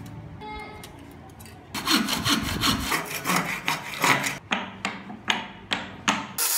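Hand hacksaw cutting through a small round piece of hardwood in rasping back-and-forth strokes, about two a second, starting about two seconds in.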